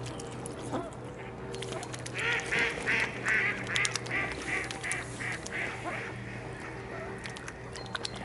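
A mallard quacking, a run of about a dozen quacks some three a second, starting about two seconds in and fading out by about six seconds in. Under it runs a steady low drone of a helicopter, with small splashes and clicks from mute swans dabbling at the water's edge.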